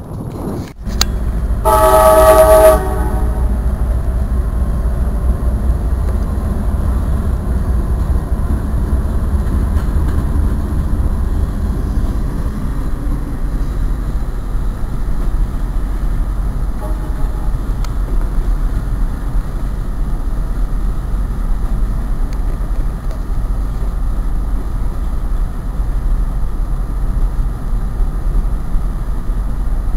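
A train horn sounds one short blast of about a second, then the steady low rumble of a train passing.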